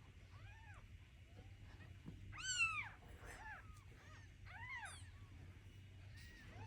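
Kittens mewing: a string of short, high-pitched calls that rise and fall, the loudest about two and a half seconds in and another clear one near the five-second mark, with fainter mews between.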